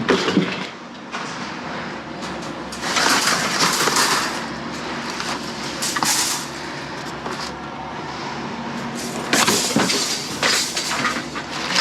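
Scrap metal being unloaded: heavy metal scraping and clattering in several loud spells, the longest about three seconds in and another about nine and a half seconds in, with a steady rumble underneath.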